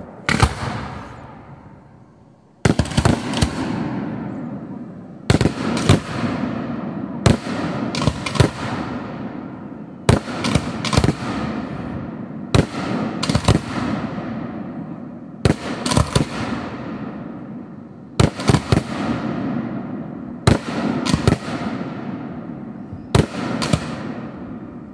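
Aerial firework shells bursting one after another, a sharp bang every two seconds or so, some in quick pairs, each trailing off in a long rumble.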